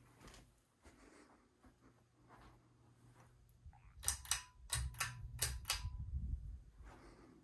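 Ceiling fan pull-chain switch clicking as the chain is tugged to step through the fan speeds: about six sharp clicks in quick pairs, starting about four seconds in, over a low rumble.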